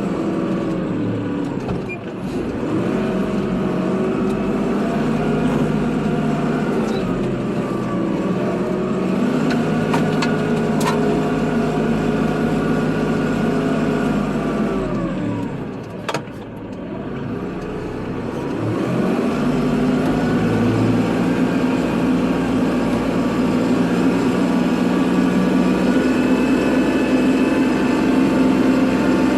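Kubota tractor's diesel engine running steadily. Its revs dip briefly near the start and again about halfway through, then climb back and hold steady.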